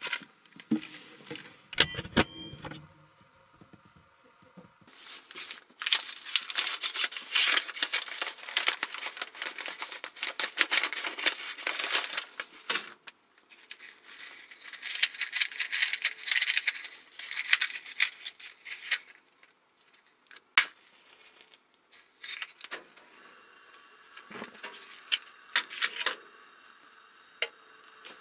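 A cardboard matchbox being handled, its matches rattling inside, along with crinkling of plastic wrapping. In the second half there are a few sharp clicks.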